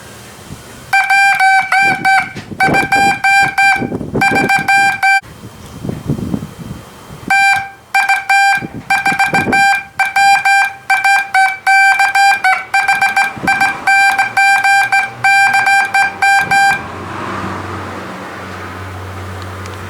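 Homemade Morse code practice oscillator sounding a single mid-pitched beep, keyed on and off in dots and dashes. Two runs of code with a pause of about two seconds between them.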